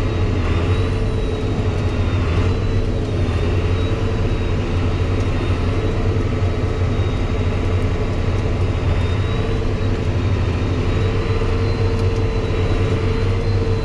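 John Deere 8300 tractor's diesel engine running steadily under way, heard from inside the closed cab: a low hum with a faint high whine above it.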